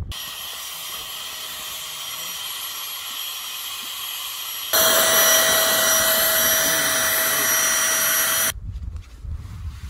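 Small battery-powered air mat inflator pump running steadily while blowing up a Therm-a-Rest NeoAir XLite sleeping mat. It jumps louder, with a clearer whine, about halfway through, then stops abruptly shortly before the end.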